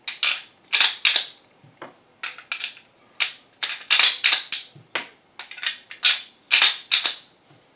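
Speed Beez hand-squeezed magazine loader clicking as 9mm cartridges are dropped in and pressed one by one into a Glock magazine. An uneven run of sharp metallic clicks, often in pairs, two or three a second.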